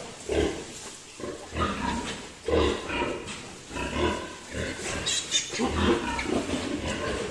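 Sow grunting over and over, short deep grunts about once a second, as she lies in the farrowing straw with her newborn litter.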